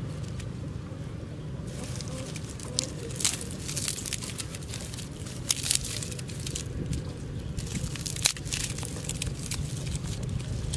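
Dry sticks being snapped and broken up by hand: crackling and rustling, with a few sharp snaps.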